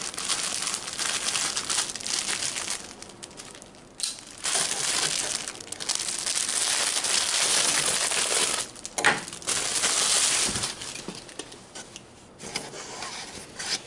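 Clear plastic bag crinkling and rustling as a wrapped cloth banner is handled and pulled from it, in several long stretches with short pauses between.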